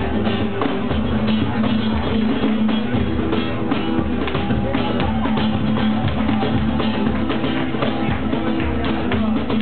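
Flamenco guitar played with cajón accompaniment: rhythmic strummed and plucked guitar over deep thumps and sharp slaps on the box drum.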